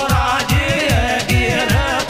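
Meena geet, a Rajasthani folk song: drum strokes about four a second, each dropping in pitch, under a bending melody line, likely a singing voice.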